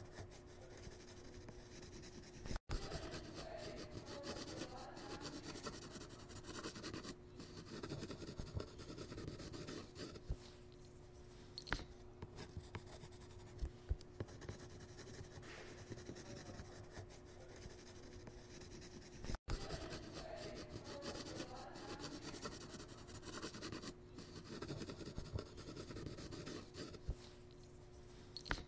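Continuous scratchy sketching sounds, like a pencil rubbing and scribbling across paper, with a faint steady hum under it. The sound cuts out for an instant twice, about two and a half seconds in and again about nineteen seconds in.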